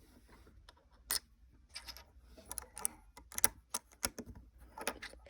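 Small plastic Lego pieces clicking and rattling as they are handled and pressed together: a run of sharp, irregular clicks that starts about a second in and gets busier in the second half.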